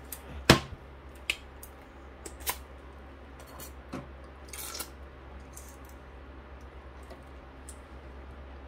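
Small plastic clicks and ticks of a printhead and its cleaning tools being handled: a sharp click about half a second in, a few lighter ticks after it and a short hiss a little before five seconds in, over a low steady hum.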